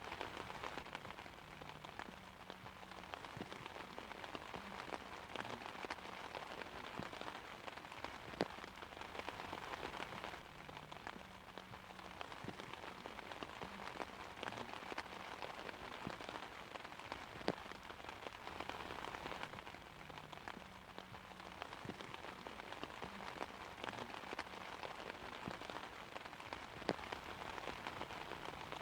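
Steady rain pattering on an umbrella canopy: a dense, even hiss of drops with countless small taps, and a few louder single drops now and then. No thunder.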